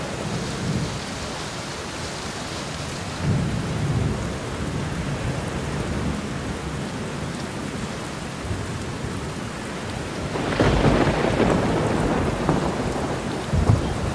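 Thunderstorm: steady heavy rain, with a low roll of thunder about three seconds in and a louder thunder rumble breaking about ten seconds in, cracking sharply near the end.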